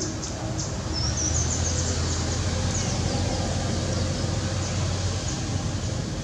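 Low rumble of a motor vehicle's engine running, setting in about a second in, with high chirping over it.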